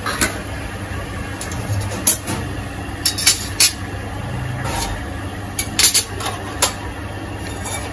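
Kitchen sounds over a steady low hum: several sharp metal clicks and taps as a slotted steel spatula and utensils knock against a steel pot of pasta boiling on a gas stove.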